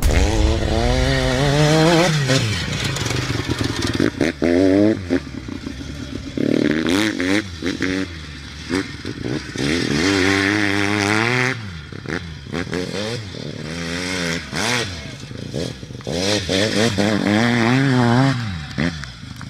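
Hercules 502 GS dirt bike's single-rotor Wankel engine being ridden hard, its pitch rising and falling over and over as the throttle is opened and closed.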